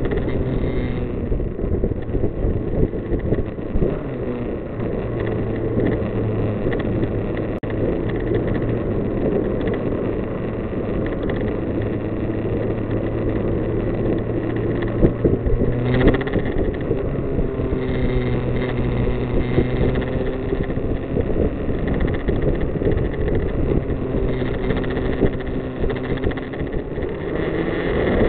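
Kawasaki Z900's inline-four engine running steadily at road speed under wind and road noise, its note shifting about halfway through and starting to climb right at the end as the bike accelerates to overtake.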